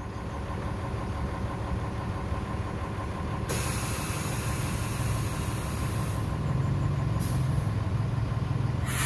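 Heavy diesel engine running and slowly growing louder. About three and a half seconds in, a loud hiss starts suddenly, then fades and returns in short bursts near the end.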